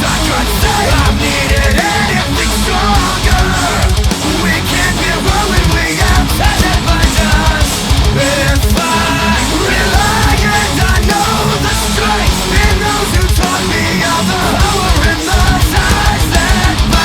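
Loud heavy rock music playing without a break.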